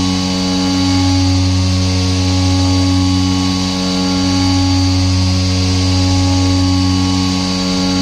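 DIY epoxy-granite CNC vertical mill spindle and end mill cutting a metal plate under flood coolant: a steady humming tone over a hiss, easing off briefly about half a second in, near the middle and near the end.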